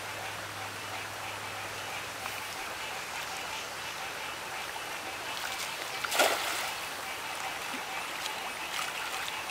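Shallow creek water running steadily over rocks. About six seconds in, a single loud splash as a thrown cast net lands on the water.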